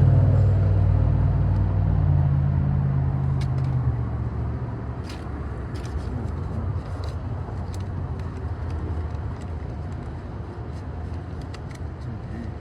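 A motor vehicle's engine rumble that fades away over the first few seconds, leaving a quieter steady background with scattered small clicks.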